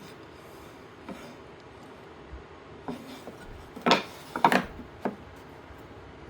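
Wooden boards being handled and positioned by hand: a few light knocks, then a louder cluster of sharp wood-on-wood clatter a little past the middle, with no saw running.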